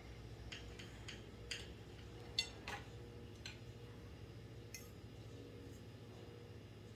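Faint, scattered clicks and taps of a metal knife and cake server against a plate as a slice of cake is cut and lifted out, the sharpest about two and a half seconds in, over a low steady hum.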